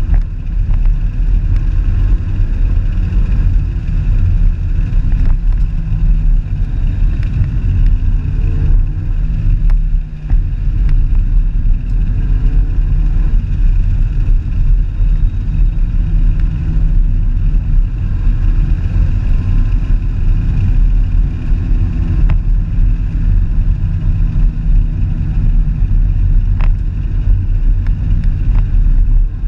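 Car driving at a steady cruising speed: a loud, steady low rumble of engine and tyre noise.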